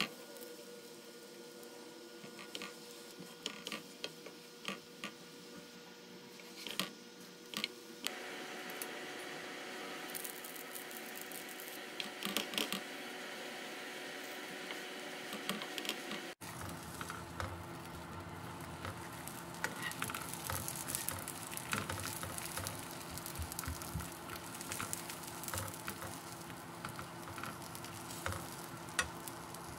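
Gözleme made from filled lavash frying in oil in a nonstick pan, with a soft steady sizzle and scattered clicks and scrapes of utensils against the pan.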